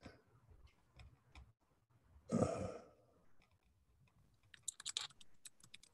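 Computer keyboard clicks: scattered taps at first, then a quick run of key presses near the end. A brief louder noise comes about two and a half seconds in.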